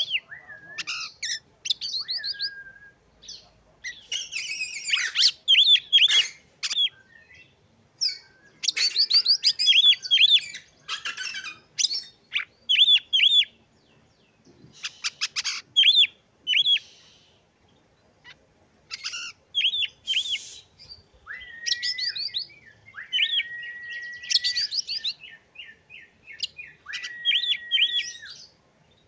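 Oriental magpie-robin singing loudly in varied phrases, mostly quick runs of repeated high chirps with short pauses between them. Late on the song adds three long, level whistles of a second or two each.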